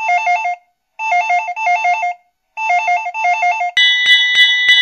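Alarm-bell sound effect for a toy fire station. It starts as a rapid electronic two-note trill in three bursts of about a second each, like an old telephone ringer. Near the end a bell starts clanging, struck about three to four times a second, as the station's alarm bell swings.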